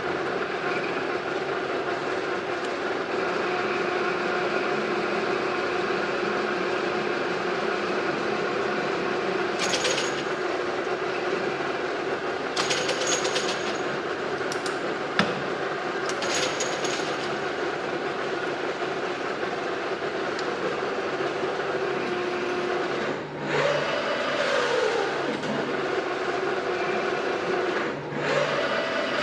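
Excavator working: its motor hums steadily, with a few short clatters partway through. Twice near the end the pitch swings up and back down as the machine works harder.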